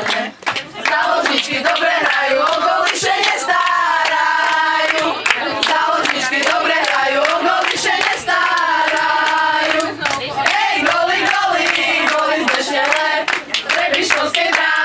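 A group of girls singing a chant together, clapping their hands along with it.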